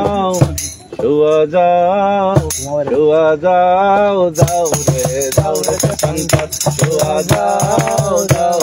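Bengali folk music: a sustained melody with wavering, sliding pitch, joined about four seconds in by a rattling shaker keeping a steady, quick beat.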